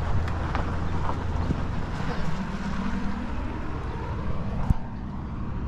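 Outdoor rumble of wind buffeting the microphone, steady and low, with a faint drawn-out hum in the middle and a single sharp click near the end.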